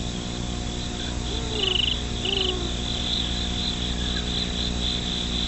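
Crickets chirping in a steady, pulsing night chorus, with two short higher trills about one and a half and two and a half seconds in, over a faint low steady hum.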